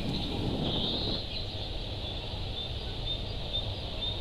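Small birds chirping, short high calls repeating every second or so, over a steady low rumble of background noise.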